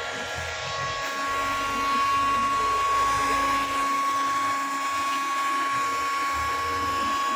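Electric heat gun running with a steady whine and a rush of air, the kind used to heat and soften a plastic bumper.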